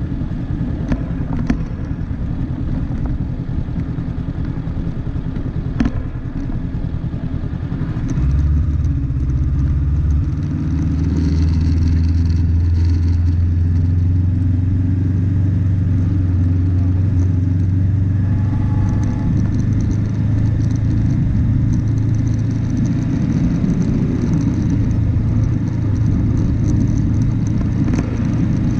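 An off-road vehicle's engine running as it drives along a gravel track, with a few sharp knocks in the first six seconds. About eight seconds in, the engine note steps up and gets louder, then holds a steady drone.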